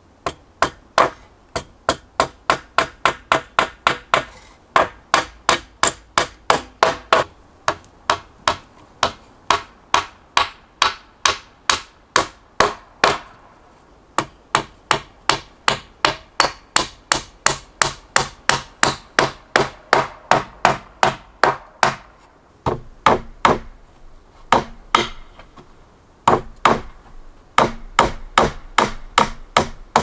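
Hammer driving nails into timber: quick, even blows at about three a second, in runs of a few seconds broken by brief pauses.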